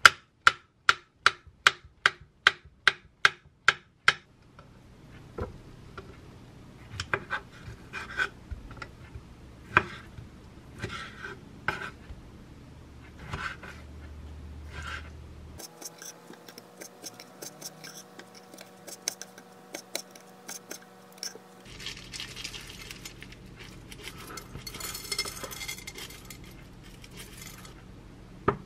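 Kitchen knife slicing a banana against a wooden cutting board: a run of even taps, about three a second, for the first four seconds. Slower, uneven knife cuts through fresh figs follow. Near the end there are a few seconds of rustling as granola is sprinkled into a ceramic bowl.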